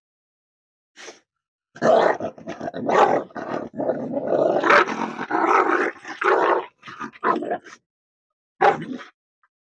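An Indian native dog growling and barking aggressively in a fast run of harsh bursts, starting about two seconds in and lasting some six seconds, with one more short burst near the end, as a man reaches into its kennel with a leash.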